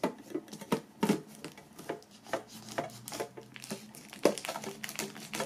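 Plastic shrink-wrap being cut with a knife and pulled off a metal box: a string of irregular crackles, scratches and clicks.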